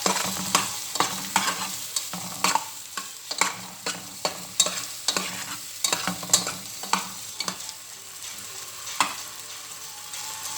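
Hot dogs sizzling as they fry in oil in a pan, with a cooking utensil knocking sharply against the pan again and again as they are stirred and turned. The knocks come often for the first seven seconds or so, then only now and then.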